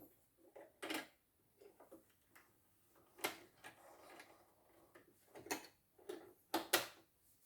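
Irregular small clicks and knocks of parts being handled and fitted on a portable computer embroidery machine, with a sharper pair of clicks near the end.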